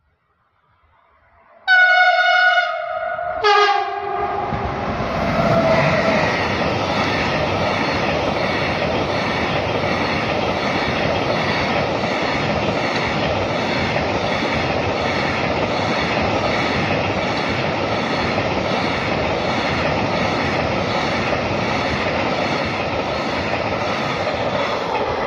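Two-tone horn of an LTE class 193 Vectron electric locomotive sounding twice, a higher note and then a shorter lower one. The freight train then passes close by, its wagons rolling in a steady loud rumble with a regular clatter of wheels over the rail joints.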